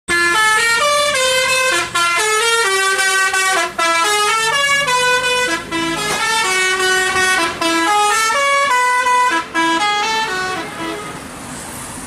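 A bus's 'telolet basuri' multi-tone musical horn playing a tune: several horn tones sound together as chords and step quickly from note to note. It fades out near the end.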